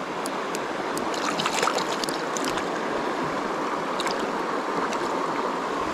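Shallow river water running steadily over stones and around wading legs, with a few light splashes and ticks as a small brown trout is brought to hand in the water.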